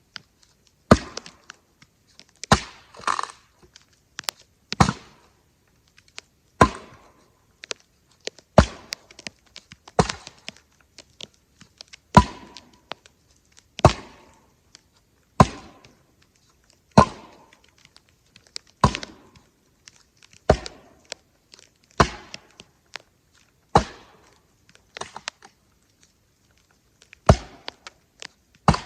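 Firewood being worked by hand: a long series of sharp wooden knocks, about one every second and a half to two seconds, each with a brief ring, and a short pause near the end.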